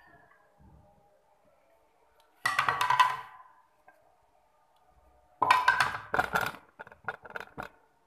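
Rapid clattering knocks of a dish as the leftover fruit pieces are tipped into the trifle bowl, in two bursts, the second longer.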